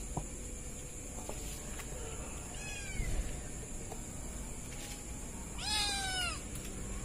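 Kitten meowing twice, each call falling in pitch: a short, fainter meow about two and a half seconds in, then a louder, longer one near the end.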